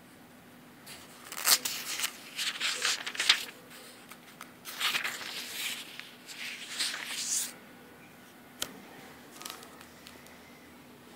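Paper pages of a book being leafed through, rustling in two spells of a few seconds each, then a single sharp tap about eight and a half seconds in.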